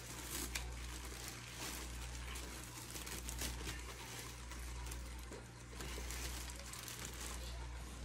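Thin plastic mattress bag crinkling and rustling as hands handle it and tie elastic around the cord at its top, with small irregular crackles, over a steady low hum.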